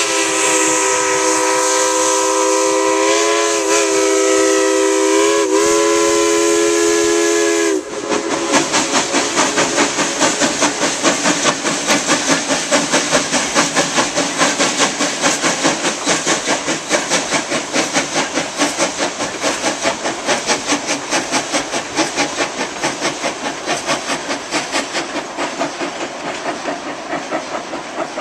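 Steam locomotive No. 190 blowing a long multi-note steam whistle, its pitch dipping briefly twice, cut off abruptly about eight seconds in. Then the running locomotive chuffs with hissing steam in a steady rhythm of about three beats a second, slowly fading.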